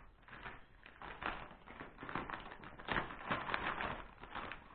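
A shipping package being handled and opened by hand: irregular rustling and crinkling of packaging with scattered taps and clicks.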